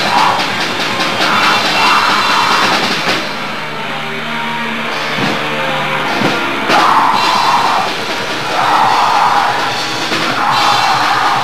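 Hardcore punk band playing live: drum kit, distorted guitar and bass with yelled vocals. About three seconds in the band drops to a thinner break with steady low notes and no cymbals, and the full band comes back in hard a little before the seven-second mark.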